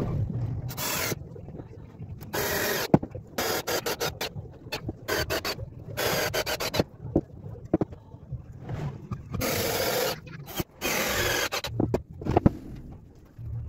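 Scraping, rasping strokes on a workpiece, coming irregularly, each lasting up to about a second, with a few sharp clicks among them.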